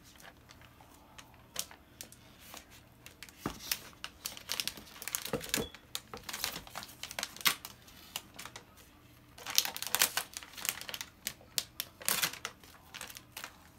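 Seal wrapping being torn and peeled off an iPhone box: irregular crinkling and tearing in two busy spells, with quieter handling in between.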